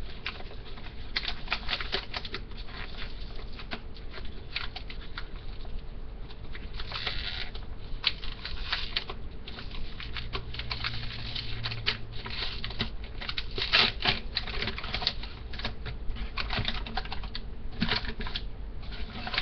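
Wrapping being torn open and handled close to the microphone: a long run of crinkling and rustling made of many small crackles, with louder crackles now and then.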